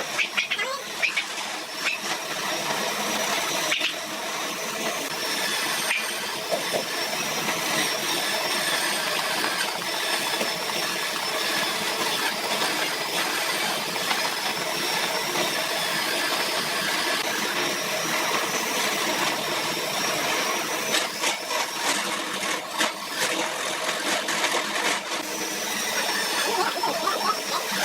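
Angle-grinder motor running steadily with a high, wavering whine, driving a homemade wood lathe. An irregular scraping clatter runs over it for a few seconds near the end.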